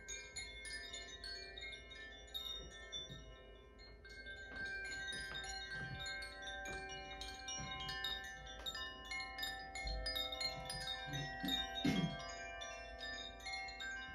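Chimes tinkling: many small metal tones struck in quick succession, ringing on and overlapping, growing fuller from about four seconds in.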